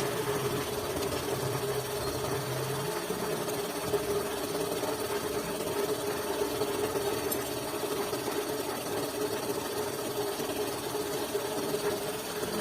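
Honda TMX155 motorcycle's single-cylinder four-stroke engine running steadily with an even mechanical clatter.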